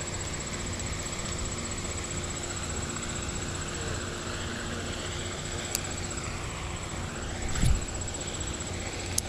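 Steady outdoor background with a low hum and a thin, steady high-pitched whine, a few small clicks, and a short rubbing thump about three-quarters of the way through as an arm brushes the chest-mounted microphone.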